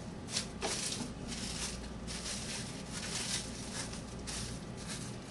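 Faint kitchen handling noises: soft rubs and small scattered taps over a low steady hum.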